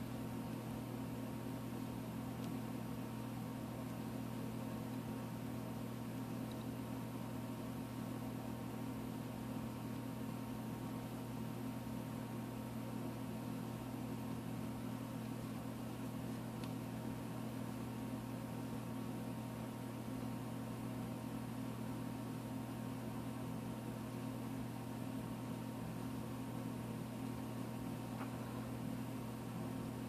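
Steady low hum with a faint even hiss, unchanging throughout: room background noise.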